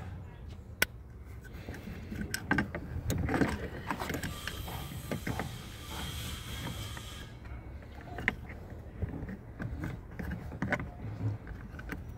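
Clicks, knocks and scraping of the emergency brake release handle's parts being worked and forced into place by hand, with a brief stretch of rubbing in the middle.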